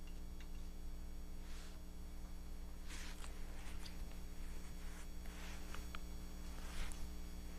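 Steady low hum with several short rustling swishes: a small diecast toy car being pushed and handled on carpet.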